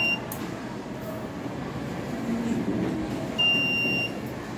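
An electronic beeper sounding a steady high-pitched beep of well under a second, the tail of one at the very start and a full one about three and a half seconds in, over steady low background noise.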